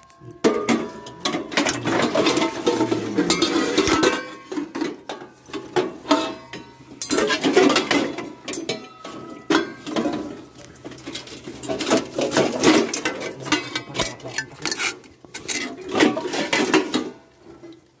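Stainless steel cooking pots and lids clanking against one another as they are handled and shifted in a pile, with many irregular metallic knocks.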